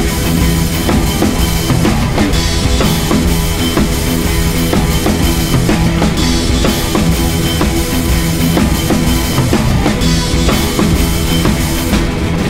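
Background music with a drum-kit beat of bass drum and snare.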